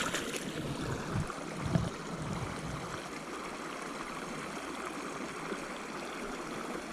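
Mountain trout creek running steadily over rocks, with a couple of soft low thumps in the first two seconds.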